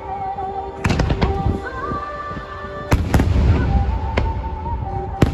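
Fireworks bursting: sharp bangs about a second in, a quick pair around three seconds in and another near the end, with low rumbling between them.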